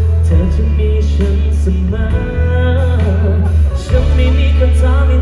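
Live pop ballad played loud through a concert PA: a band with a heavy, sustained bass line under a sung melody.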